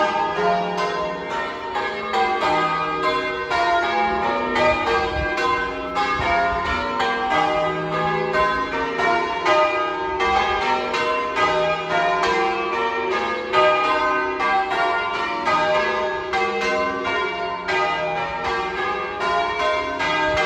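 A ring of church tower bells being rung in changes: a steady, evenly paced stream of bell strokes, each bell sounding in turn and overlapping the ring of the one before.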